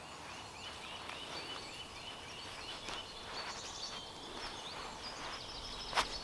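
A small bird singing a quick series of repeated short notes, about four or five a second, followed by higher scattered notes, over faint forest background. A single sharp click sounds near the end.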